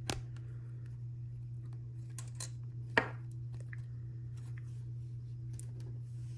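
Small plastic clicks and taps of LEGO pieces being handled and pressed into place, with one sharper click about three seconds in, over a steady low hum.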